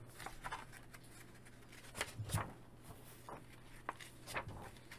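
Glossy comic book pages being turned by hand: a few faint, short paper rustles and brushes, scattered through the stretch, over a steady low hum.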